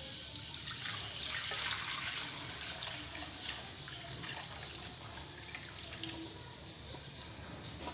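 Beef broth poured in a stream from a pot into a metal wok, splashing steadily as the wok fills.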